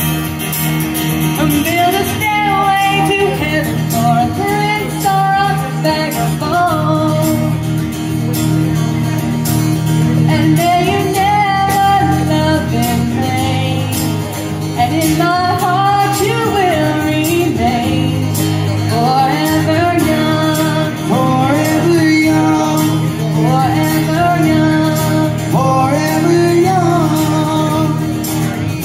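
Live acoustic music: an acoustic guitar strummed steadily under a voice singing the melody, with a tambourine jingling in time.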